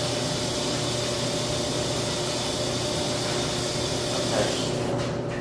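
Top-loading washing machine filling, a steady hiss of water spraying into the tub over a low hum; the hiss drops away about five seconds in.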